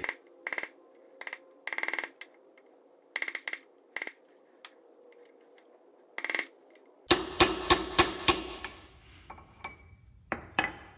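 Hammer blows on a 32 mm socket, used as a driver to seat a new axle oil seal in a Toyota solid-axle steering knuckle, each strike ringing metallically. It starts as short groups of taps with pauses between them, then a quicker run of about a dozen blows comes about seven seconds in, with a last pair of taps near the end.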